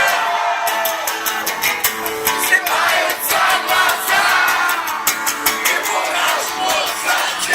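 Live band music with a singing voice and guitar, played loud.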